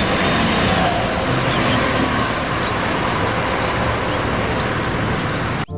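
Steady city traffic noise, a dense rush of road vehicles with a few faint bird chirps, cutting off suddenly near the end.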